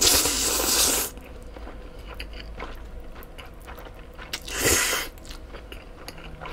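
Cold bibim-myeon noodles being slurped into the mouth twice: a long slurp about a second long at the start and a shorter one at about four and a half seconds, with soft chewing between.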